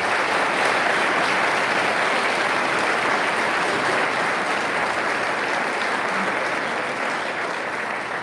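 Audience applauding, a steady, sustained clapping from a large crowd.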